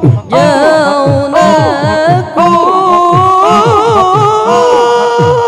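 Zikir saman devotional chant: a single voice singing a long, ornamented Middle Eastern-style melodic line, with pitches held and wavering, over a steady low drum beat of about three strokes a second.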